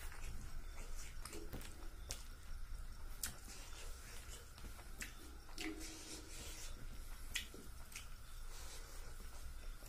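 Fingers mixing rice and fish curry by hand on a leaf plate: soft wet squishes and scattered sticky clicks, with a mouthful taken near the end.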